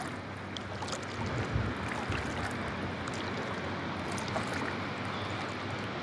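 Deep floodwater sloshing and splashing steadily as it is moved through, with a few small splashes and a faint low hum underneath.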